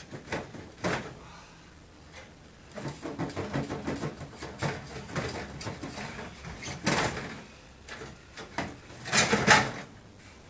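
Irregular scraping, rattling and knocks in short bursts as parts of an old refrigerator are worked on and handled, the loudest burst coming near the end.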